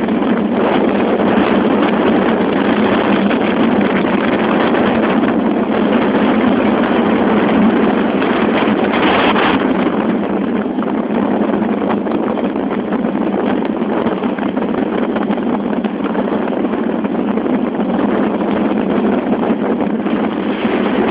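Steady, loud rush of wind and road noise from a car moving at highway speed, the airflow buffeting the phone's microphone.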